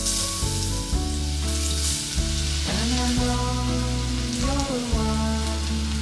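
Lotus root sizzling as it is stir-fried in a pan.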